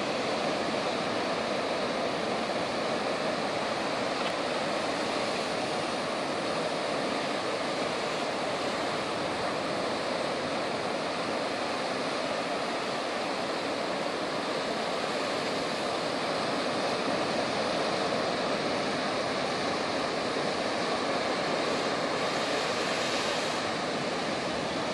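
Steady rush of churning sea water with some wind, an even noise without a break. It turns briefly brighter and hissier near the end.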